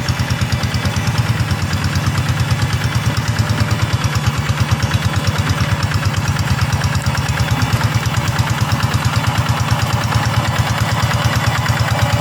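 Single-cylinder diesel engine of a two-wheel rice-paddy hand tractor running steadily with a fast, even chugging beat.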